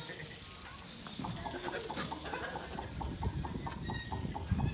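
A bird's rapid run of short, evenly spaced calls, about six a second, lasting roughly two and a half seconds, over low rustling and thumps.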